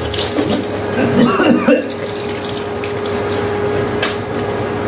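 Tap water running into a washbasin while a man rinses out his mouth under it, with a steady tone beneath the splashing.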